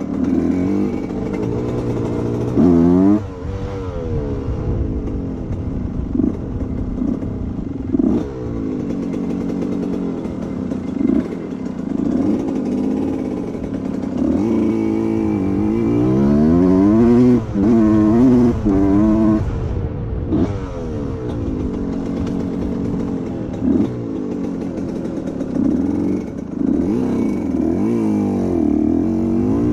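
1990 Suzuki RM125's two-stroke single-cylinder engine under way, its pitch rising and falling again and again with the throttle and gear changes.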